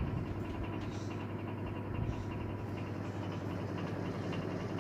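Elcon 16-inch desk fan running fast on its repaired motor: a steady electric motor hum with the even rush of air from the blades.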